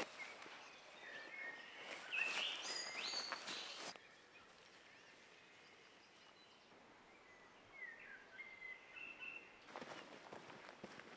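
Birds singing short phrases over quiet outdoor ambience, with rustling steps through long grass during the first few seconds and again near the end.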